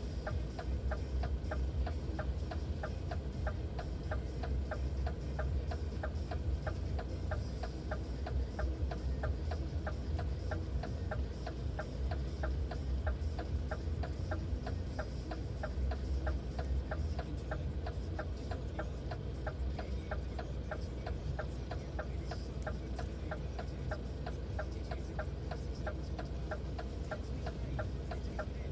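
Vehicle engine idling with a steady low rumble, overlaid by a regular fast ticking of several clicks a second.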